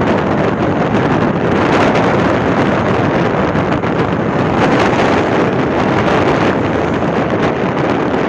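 Wind rushing over the microphone of a camera carried on a moving bicycle: a loud, steady rush of noise.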